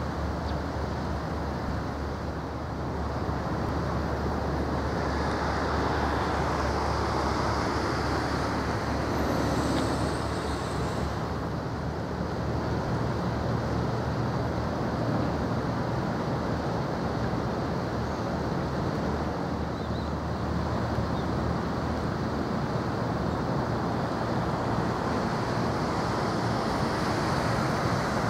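Steady low rumble and hiss of outdoor background noise, with no single event standing out.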